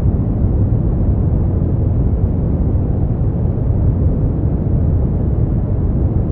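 Continuous brown noise: a steady, deep rumbling hiss, loudest in the bass and fading toward the treble, with no changes or events.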